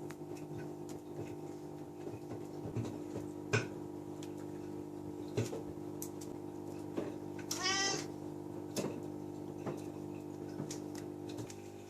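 British cat meowing once, a short rising-and-falling call about two-thirds of the way through, over a steady background hum with scattered light clicks and taps.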